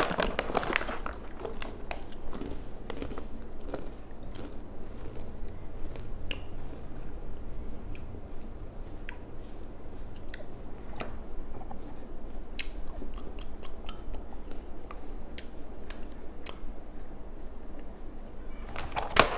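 A person chewing and crunching salted egg yolk flavoured crisps, with many short, sharp crackles scattered throughout.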